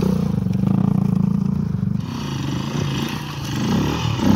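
Enduro motorcycle engine running at low revs close by as the bike crawls up over loose rock, dropping to a quieter, more distant engine sound after about two seconds. A short louder swell comes near the end.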